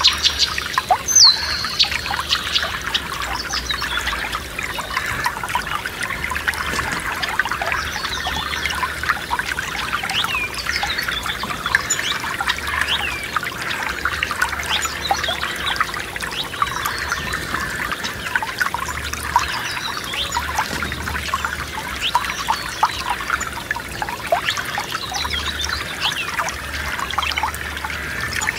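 Forest stream trickling and babbling over stones in a steady stream of small splashes, with occasional short bird chirps above it.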